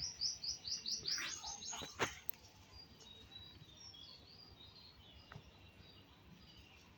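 Pet parrot chirping: a quick run of about eight short, high chirps in the first two seconds, then fainter, scattered chirps. There is a sharp click about two seconds in.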